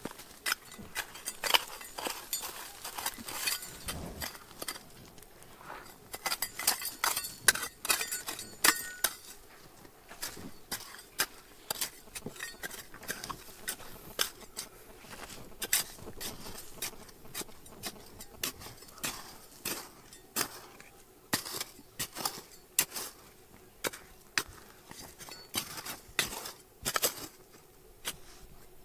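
Rapid, irregular clinks and knocks of stones and gravel being handled, some ringing briefly, with a dull thump about four seconds in.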